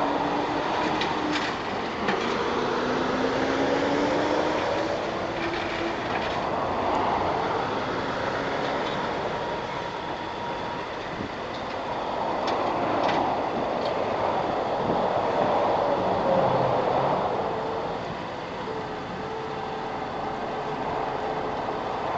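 Highway traffic going by, tyre-and-engine noise swelling and fading every few seconds, with the engine tone of a passing tractor-trailer gliding up in pitch in the first few seconds.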